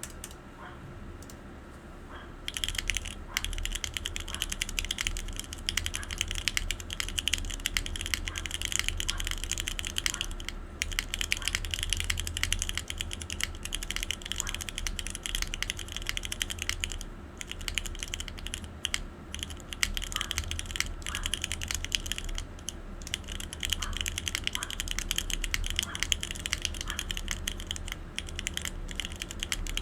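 Fast, continuous typing on a TGR Jane V2 ME top-mount mechanical keyboard with broken-in Cherry MX Black linear switches on 62 g springs, a polypropylene plate and GMK ABS keycaps. Typing starts about two and a half seconds in and runs on with a few brief pauses.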